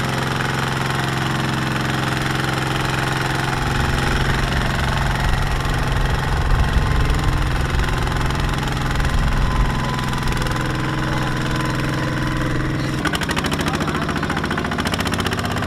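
Kubota walking tractor's single-cylinder diesel engine chugging under load as it hauls a loaded trailer through mud. About 13 seconds in its steady note breaks and drops lower.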